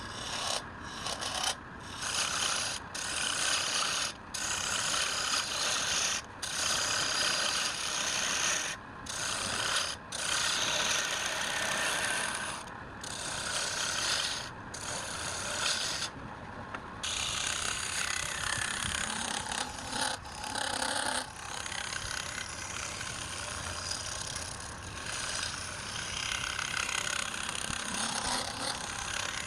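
A hand tool scraping and rasping against wood without let-up, broken by many abrupt short gaps in the first half.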